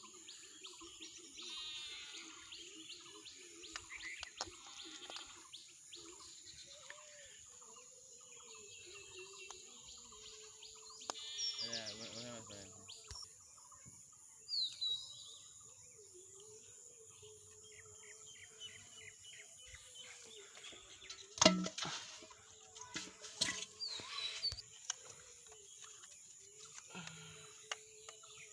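Outdoor rural ambience with birds chirping and calling at intervals over a steady high-pitched hiss, and one sharp knock about three quarters of the way through.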